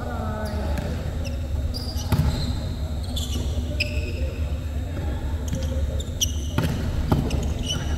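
Volleyball rally in a sports hall: several sharp hits of the ball on players' forearms and hands, with short high squeaks of sneakers on the court floor and a player calling out near the start. A steady low hum of the hall runs underneath.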